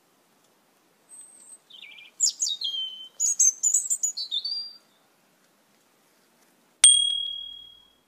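Asian glossy starlings calling: a quick run of high, sharp chirps and whistled notes for about four seconds. Near the end a single bell-like ding rings out and fades over about a second.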